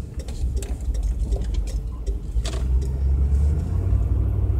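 Car interior road and engine noise while driving, a steady low rumble that grows louder about three seconds in, with a few light clicks.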